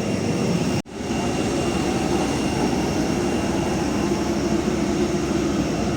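Airliner cabin noise: the steady rush of the engines and airflow heard from inside the cabin, with a few faint steady tones. It cuts out abruptly for a split second about a second in, then carries on.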